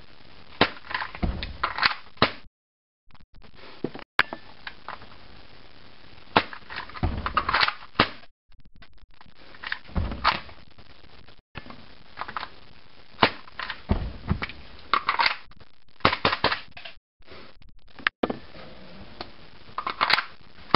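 All-plastic KSC USP .45 gas-blowback airsoft pistol firing in quick strings, each shot a sharp clack of the slide cycling. The slide locks back when the magazine runs empty, with clicks of the magazine being changed between strings.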